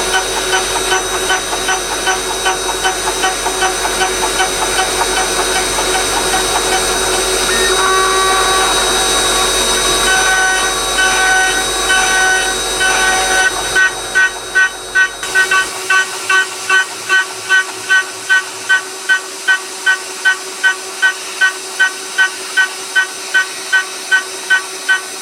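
CNC router's 2.2 kW spindle running with a steady whine while its end mill cuts the part in trochoidal milling. About halfway through, the cutting sound turns into even pulses, about two and a half a second, as the cutter swings into and out of the material on each loop.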